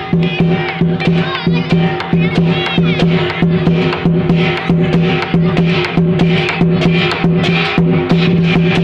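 Lion dance music: drums and percussion keeping a quick, even beat of about four strikes a second over sustained held tones.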